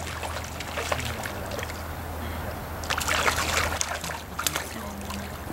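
Shallow stream water running and trickling around wading anglers, with a burst of splashing about three seconds in.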